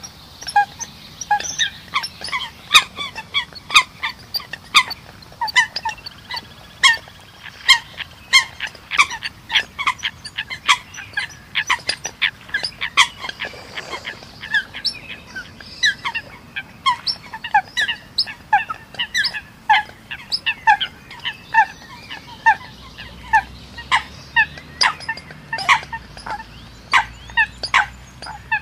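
Eurasian coot calls: short, sharp notes repeated a few times a second in irregular runs.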